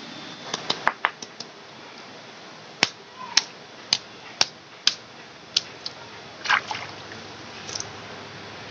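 Sharp, crisp snaps, about two a second, as fresh green leaf stalks are broken by hand, over the steady rush of a shallow stream.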